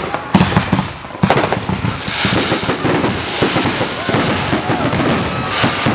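Consumer fireworks going off: a rapid run of crackling pops and bangs, with a stretch of hissing about two seconds in.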